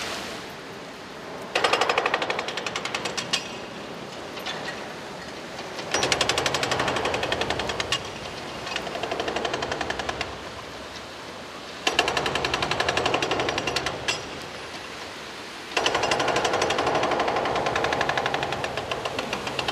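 Excavator-mounted hydraulic concrete breaker hammering on a concrete roof, a rapid run of blows in four bursts of a few seconds each, with quieter hammering in between.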